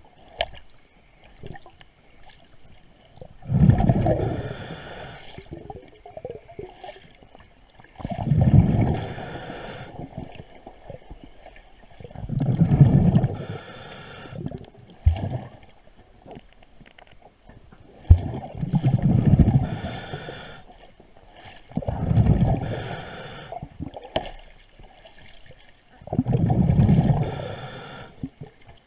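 A diver's breath bubbling out of a regulator underwater: a gurgling rush six times, about every four to six seconds, with small clicks between.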